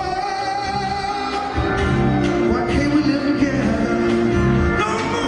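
Live concert music: a male singer singing at a keyboard with band accompaniment, recorded from the audience on a fan's camera.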